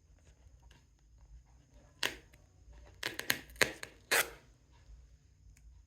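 Paper and cardboard packaging of an AirPods Pro box being picked at and torn. A torn pull-tab seal strip is being removed, heard as a few short, sharp crackles: one about two seconds in, a quick cluster around three seconds, and a longer one near four seconds.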